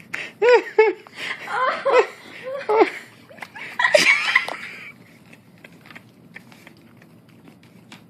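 A person laughing in a string of short, high-pitched bursts, followed by a breathy burst of laughter about four seconds in. After that only faint clicks are heard.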